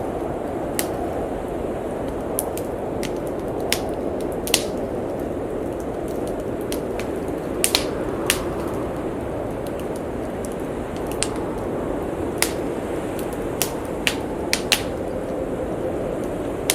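Wood fire crackling, with irregular sharp pops about once a second, over the steady rushing of snowstorm wind.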